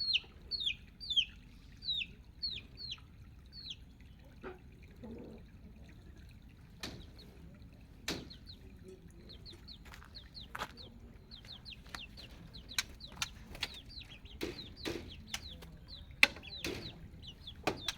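Baby chicks peeping: short falling peeps, about three a second at first, fading for a few seconds, then crowding back in the second half. Sharp clicks and knocks sound among them several times.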